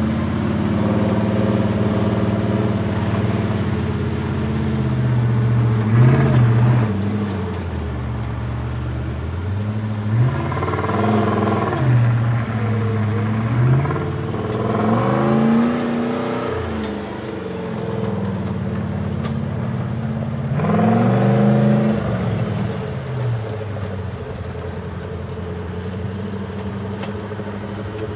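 Engine of the Jolly Jumper proto trial truck running and revving, its pitch sweeping up and falling back about five times.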